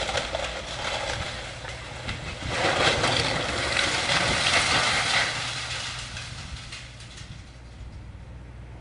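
Demolition excavator's diesel engine running steadily, with a loud rough crashing and crunching of debris from about two and a half to five seconds in that then fades away.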